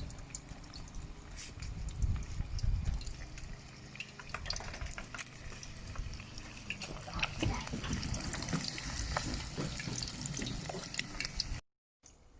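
Battered sea bream fillets shallow-frying in hot oil, sizzling with many small crackles that build up over the last few seconds, then cut off suddenly near the end.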